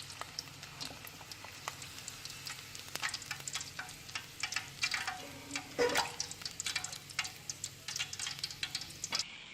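Hot oil crackling and popping around a whole pork knuckle being deep-fried, a stream of irregular sharp pops that cuts off shortly before the end.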